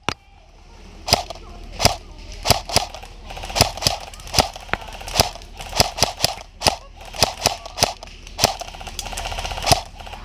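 Airsoft guns firing single shots: about sixteen sharp cracks, irregularly spaced at one or two a second, each with a brief ring after it.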